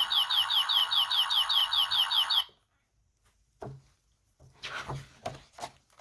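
Electronic sound effect from a children's button sound book's sound chip: a rapid warbling trill of falling chirps, about six a second, that cuts off suddenly about two and a half seconds in. A few faint knocks and rustles follow.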